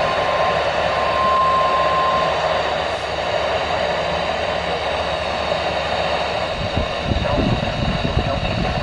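Weather radio receiver giving a steady static hiss, carrying the steady 1050 Hz NOAA Weather Radio warning alarm tone, which drops out briefly and ends about two seconds in. An irregular low rumble joins the hiss near the end.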